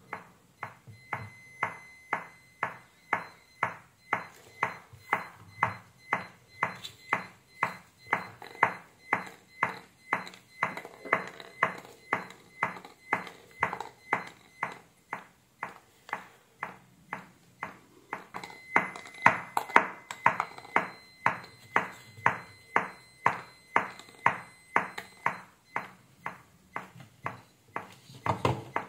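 Small speakers driven by a car audio power amplifier, popping with each edge of a very low-frequency square-wave test tone: a steady train of sharp clicks, about two to three a second.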